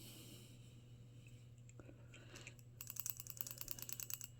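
Balisong trainer being flipped, its handles clacking: a few faint clicks, then from about three seconds in a fast run of sharp clicks, roughly ten a second, lasting about a second and a half.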